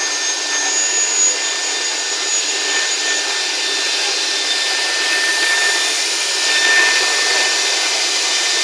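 Woodworking CNC router running steadily as it cuts grooves into a wooden door panel: a constant rushing hiss from the spindle and the cutting, with a thin steady whine.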